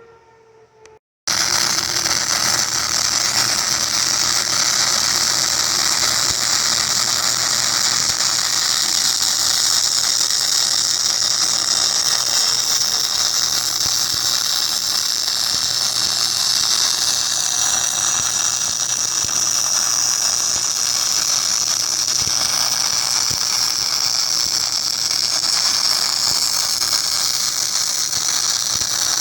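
MIG welder arc crackling and hissing in one long, steady weld bead, starting abruptly about a second in.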